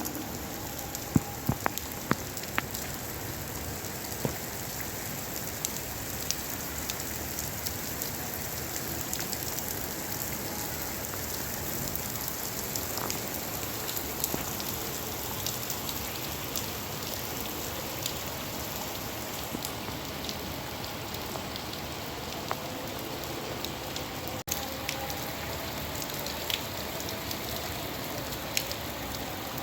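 Steady rain falling, a constant hiss of rainfall with scattered sharp ticks of individual drops hitting a surface. A few louder drop ticks come in the first few seconds.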